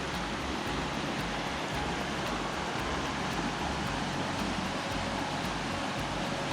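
Steady, even noise of water, with no breaks or sudden sounds.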